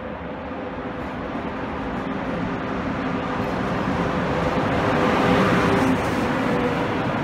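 DB class 181 electric locomotive running light and passing close by: a steady electrical hum over rolling wheel noise, growing louder as it approaches and loudest as it goes by about five to six seconds in.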